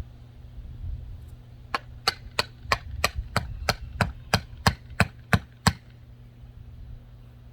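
About thirteen sharp, evenly spaced knocks, about three a second, as nails are driven into pine pallet boards, over a steady low hum.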